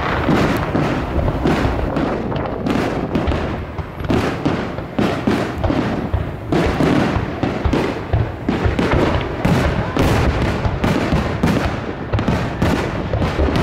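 Aerial firework shells launching and bursting in quick succession, a continuous run of overlapping bangs, several a second.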